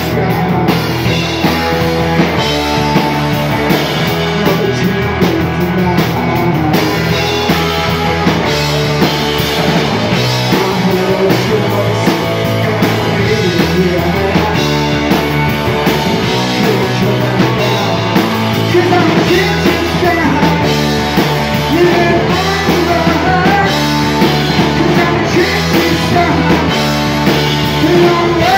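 Live rock band playing at full volume: two electric guitars, electric bass and a drum kit, with a male lead vocal singing over them.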